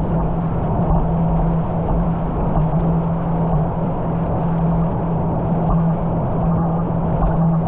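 A boat's engine running steadily under way, a constant low drone with a rushing noise over it.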